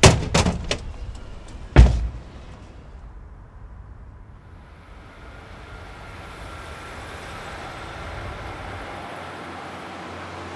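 A quick cluster of loud bangs, then one more, the loudest, about two seconds in. After that comes the steady rush of a passing train, slowly growing louder.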